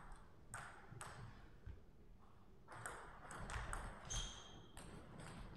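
Table tennis ball clicking off the bats and table. There are a few separate ticks first, then a quick run of hits in a rally from about three seconds in. A short high squeak comes a little after four seconds.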